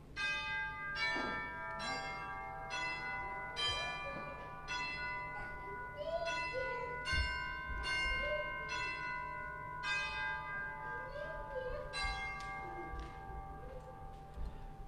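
Bells chiming a slow series of notes, about one strike a second, each note ringing on under the next, with faint voices underneath.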